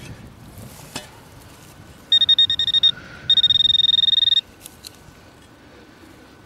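Metal detector giving a high-pitched target tone: a choppy, stuttering beep lasting about a second, then after a short gap a steady beep of about a second, as the coil passes over buried metal.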